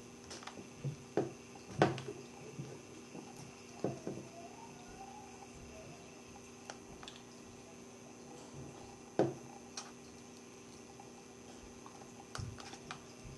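Metal pry tool clicking and tapping against an iPhone 5's frame and screen edge while prying the screen loose: scattered sharp clicks, the loudest about two seconds in and about nine seconds in, over a faint steady hum.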